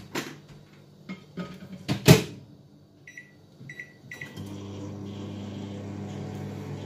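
Microwave oven being started: a loud clack, then three short keypad beeps. The oven then starts running with a steady hum.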